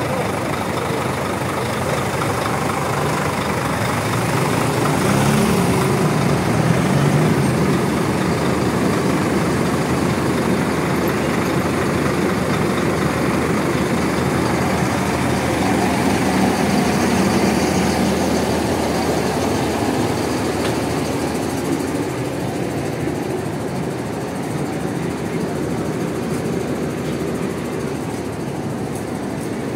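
Large diesel bus engines running, mostly idling, with one engine revving up and rising in pitch about five seconds in and swelling again around halfway.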